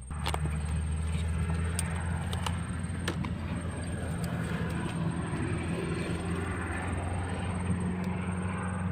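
An engine running steadily with a low hum; it comes in suddenly at the start and holds an even pitch throughout, with a few light clicks on top.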